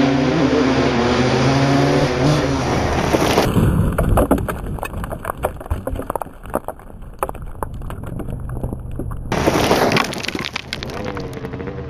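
Two-stroke dirt bike engines revving up and down, with a stretch of sharp crackling and clatter in the middle and a loud burst of revving about ten seconds in.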